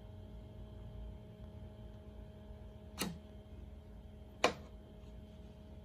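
Two sharp clicks about a second and a half apart, over a faint steady hum.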